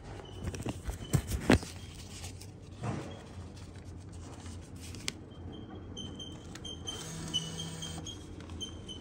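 Sharp handling clicks and knocks, loudest about a second and a half in, then a few single knocks. From about two-thirds of the way through, short faint high-pitched electronic chirps repeat over a low hum.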